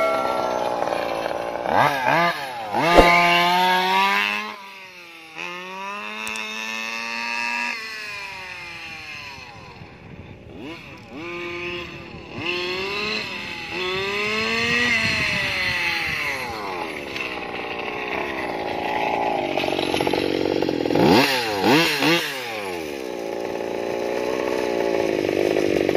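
An RC buggy's 32cc two-stroke petrol engine revving up and down as the car is driven, its pitch climbing and dropping several times as it speeds up, slows and passes by. In the last few seconds it runs steadily close by with the car stopped.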